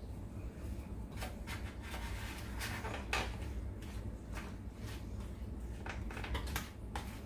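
A utensil clinking and scraping in a hot oven tray while stirring cheese sauce into chicken: scattered, irregular clicks and taps, the loudest a little past three seconds in, over a low steady hum.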